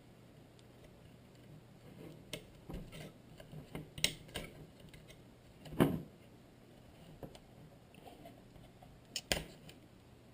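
Scattered light clicks and knocks of hands and a small tool working on an opened Spektrum DX6 radio transmitter, with one louder knock about six seconds in and two close together near the end.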